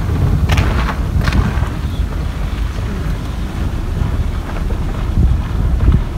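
Wind buffeting the microphone: a steady, uneven low rumble, with two brief rustles about half a second and a second in.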